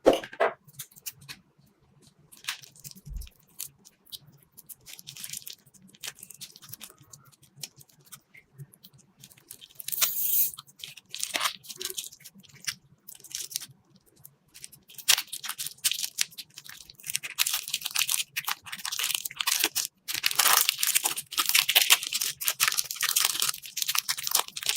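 Hands squeezing and pressing slime, giving a run of small crackles and pops. These are sparse at first and grow denser and louder in the second half.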